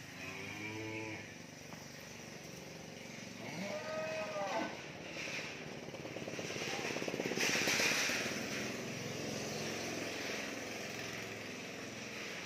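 Cattle mooing, two short calls near the start and about four seconds in. They are followed by a rapid rattling noise that swells to the loudest point about eight seconds in.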